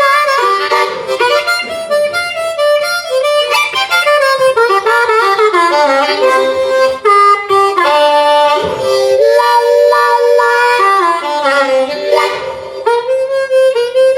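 Unaccompanied blues harmonica solo, with notes bent so they slide in pitch.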